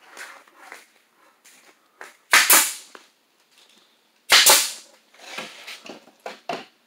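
Two loud sharp bangs about two seconds apart, each a quick double knock, amid lighter knocks and clatter from work on wooden cat-tree parts at a workbench.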